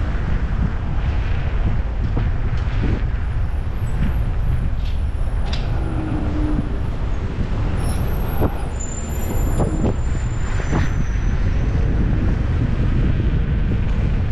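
Wind buffeting the microphone of an action camera on a moving electric scooter: a steady low rumble, with street traffic and a few short knocks from the ride mixed in.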